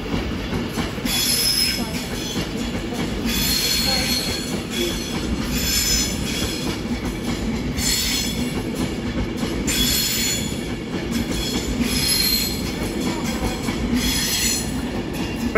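Avanti West Coast Class 390 Pendolino electric train moving past over the station tracks: a steady rumble of wheels on rail, with high-pitched wheel squeal coming back about every two seconds.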